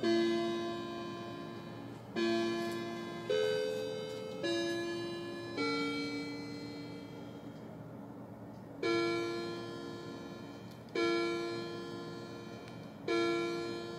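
Grandfather clock chiming. It plays the last notes of its chime tune, each note ringing and dying away, and about nine seconds in it starts striking the hour on one repeated note, about one stroke every two seconds, three strokes in all: it is striking eight o'clock.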